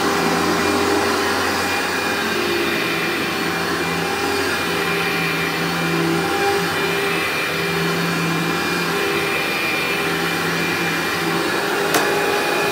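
Workhorse upright vacuum cleaner running over thick medium-pile carpet, its hum shifting as it is pushed and pulled in strokes. A single sharp click near the end as the vacuum is stood upright.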